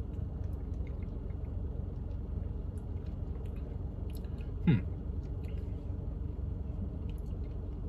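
Quiet mouth sounds of tasting an iced latte: faint lip smacks and tongue clicks, and one short falling 'hmm' a little before the middle. A steady low hum fills the car cabin throughout.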